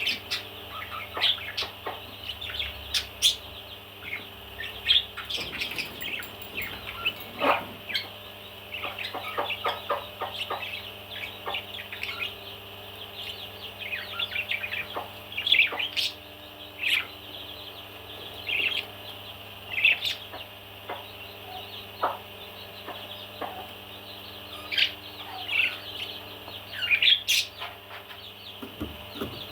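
Parrot chirping and chattering in many short, separate calls throughout, with a few sharp clicks among them.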